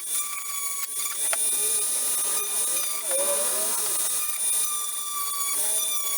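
Small high-speed rotary tool with a sanding drum grinding corrosion off a radio's metal battery terminals: a steady high whine, with lower tones that waver in pitch as the drum is pressed against the metal.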